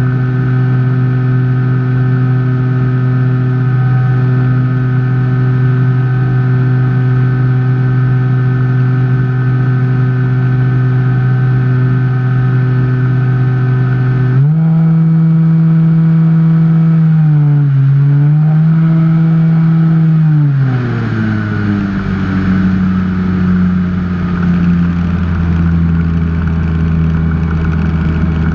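Electric motor and propeller of a Skyhunter FPV plane running at a steady pitch, heard from the onboard camera. About halfway through the pitch steps up and wavers as the throttle changes, then drops about six seconds later to a lower, rougher note with more rushing air noise.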